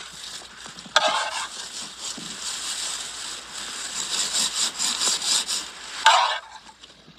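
A spoon scraping and rubbing as meat stuffing is spread onto eggplant halves on a metal tray, with two louder scrapes, about a second in and near the end as stuffing is scooped from the pot, over a steady hiss.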